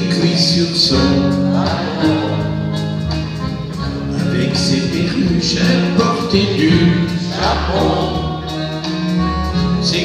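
Live band with electric guitar and drums playing a French chanson, with singing over it.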